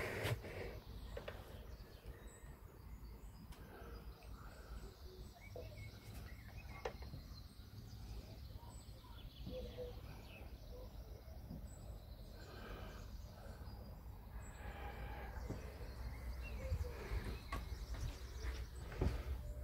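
Faint background ambience: a low steady rumble with scattered faint clicks and chirps.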